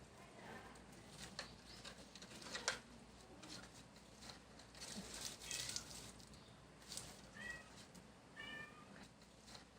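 A young cat meowing twice, two short high calls near the end, over scattered faint clicks.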